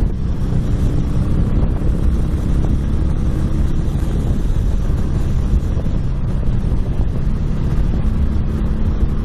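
Motorcycle under way: steady low engine hum with faint humming tones under a heavy rush of wind across the action camera's external microphone.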